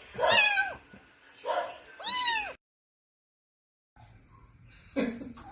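Kitten meowing: three short meows in quick succession, each rising then falling in pitch. Then the sound cuts out completely for over a second, and a fainter cry comes near the end.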